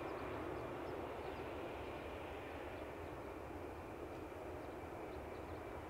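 Boeing 777F's GE90 turbofan engines at low thrust as the freighter taxis on the runway: a steady rushing hiss with a faint high whine, easing slightly.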